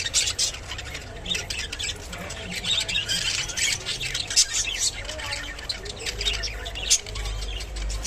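Budgerigars chattering and squawking in a rapid, scratchy stream of calls, with a few sharper squawks standing out.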